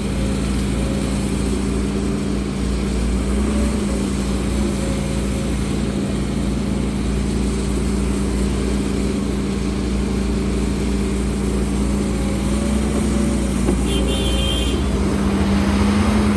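Heavy diesel engine of earthmoving machinery running steadily at a constant pitch, with a brief high-pitched tone about fourteen seconds in.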